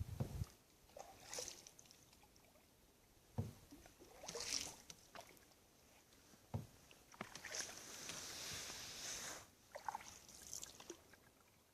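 A canoe paddle working calm water: quiet swishes and drips every few seconds, with one longer stroke past the middle. Two short, light knocks come about a third of the way in and just past the halfway point.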